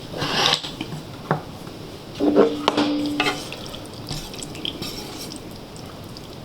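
Cutlery against dishes: a short scrape, a sharp click, then a clink with a brief ringing tone and a few lighter taps, as utensils are handled at the meal's bowls.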